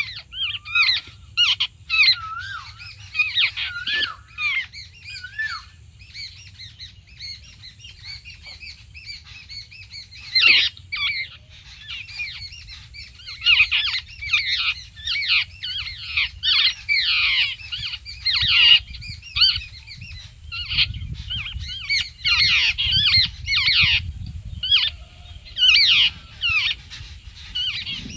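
Birds chattering: many short, harsh squawking calls in quick succession, each sweeping downward in pitch. A low rumble runs underneath and grows stronger about three-quarters of the way through.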